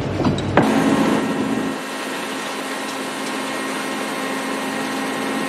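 A crane's engine running steadily, a constant mechanical drone with a low hum. A few clicks and creaks come in the first half-second, before the sound changes abruptly.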